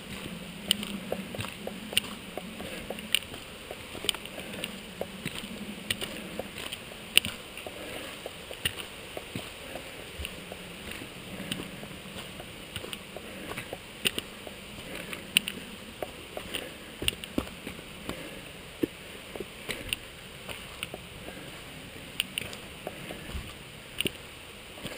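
Footsteps and walking-stick tips striking rock on a stony trail: irregular sharp clicks, roughly one or two a second, over a steady rushing background.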